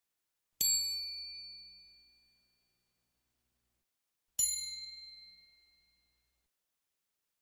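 A small metal percussion instrument struck twice, about four seconds apart. Each strike gives a bright, high ring that fades over a second or two.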